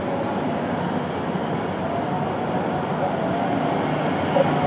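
A passenger van driving slowly past on a city street, its engine and tyres making a steady vehicle noise over general traffic sound.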